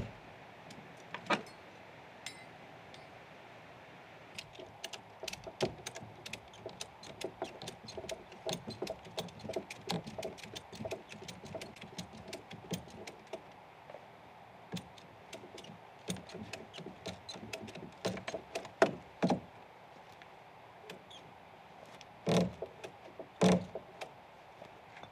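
Hand-tool work on log timber: a long run of quick, uneven knocks and taps, then two heavier thuds near the end.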